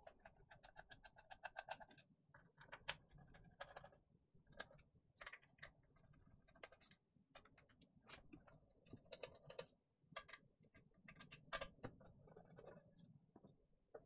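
Faint, quick clicking and ticking of the case screws being turned out of a keyboard's bottom case with a screwdriver, in several runs of rapid ticks with short pauses between.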